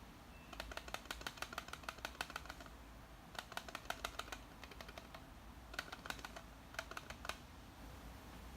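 Nikon MB-D18 battery grip rattling: four bursts of quick, light clicks, the longest about two seconds, from something loose inside the grip.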